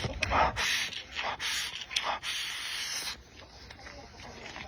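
A run of four or five harsh rubbing noises in the first three seconds, then quieter.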